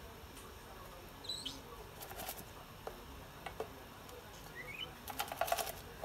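Light clicks and rattles of a small plastic tub being handled and set down, loudest in a quick run of clicks near the end. A bird chirps briefly twice in the background.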